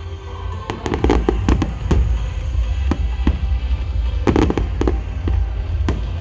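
Aerial fireworks shells bursting in a rapid series of sharp bangs, bunched into quick crackling volleys about a second in and again about four and a half seconds in, over a steady low rumble. Music plays through large outdoor loudspeakers underneath.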